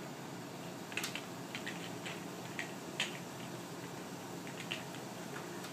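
French Bulldog puppy gnawing a hard nylon Nylabone chew toy: irregular light clicks and taps of teeth on the nylon.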